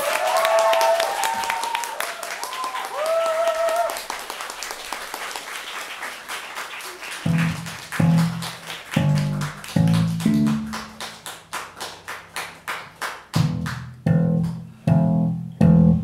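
Solo acoustic guitar played hard to close a song: sharp percussive strums and hits on the strings throughout, with high sliding notes over the first few seconds. From about halfway, a run of low pulsing bass notes comes in, and the playing breaks off at the end.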